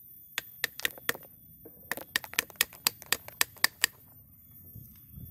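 A hammer striking the handle of a wooden-handled chisel driven into a ficus root to split it lengthwise. There are four spaced taps, then after a short pause a quicker, even run of about ten strikes over two seconds.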